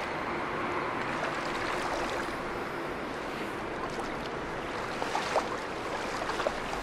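Steady rush of river water, with a few light knocks and clicks in the second half.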